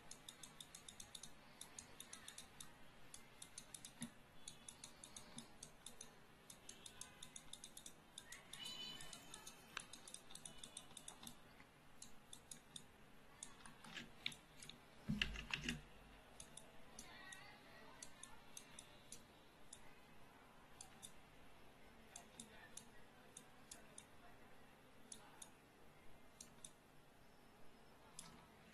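Faint, irregular clicking of a computer mouse and keyboard, coming in spells of several clicks a second, with one louder knock about fifteen seconds in.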